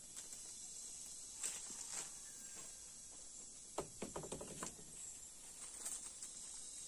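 Leafy tree branches being hooked and pulled down, the leaves and twigs rustling and snapping, with a sharp crack about four seconds in followed by a quick run of clicks. A steady high insect drone, like crickets, goes on underneath.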